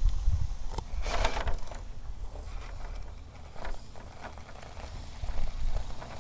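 Axial SCX10.3 Base Camp RC rock crawler on its stock tires working over the course obstacles: irregular clacks and knocks of plastic wheels and chassis on rock and wood, with a short scrabbling burst about a second in.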